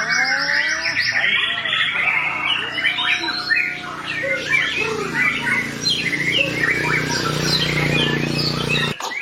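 White-rumped shama (murai batu) singing a long, varied song of rapid trills, rattles and sharp whistled notes, with a faint low hum beneath from about two seconds in. The song breaks off abruptly near the end and picks up again at once.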